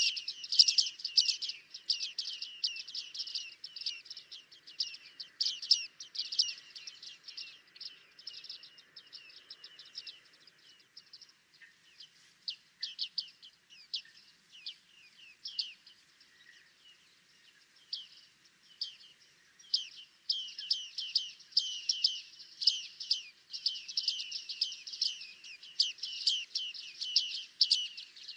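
Bearded tits calling: a rapid run of short, sharp, high call notes from several birds, thinning out in the middle and picking up again densely about twenty seconds in.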